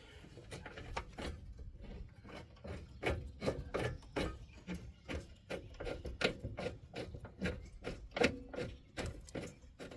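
Hand ratchet wrench running in a rear hub mounting bolt: an irregular series of clicking, rasping strokes, about two or three a second.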